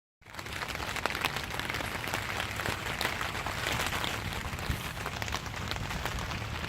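Steady rain falling, with many small sharp drop hits scattered through it.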